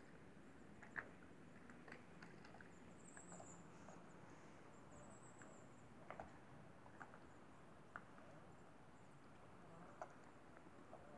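Near silence, with a few faint scattered clicks and two faint high chirps about three and five seconds in.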